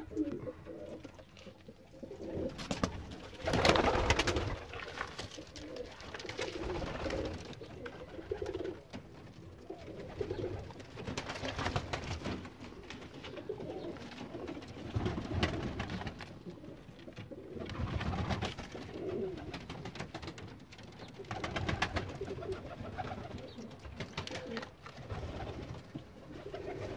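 Domestic pigeons cooing in a loft, with several louder bursts of noise, the loudest about four seconds in.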